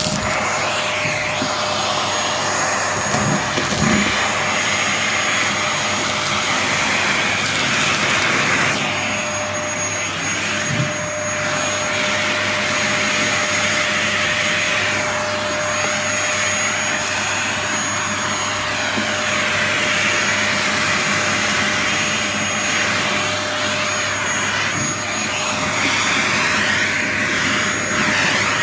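Dyson DC33 upright vacuum cleaner running steadily, its hose sucking up dirt: a rush of air with a steady whine from the motor.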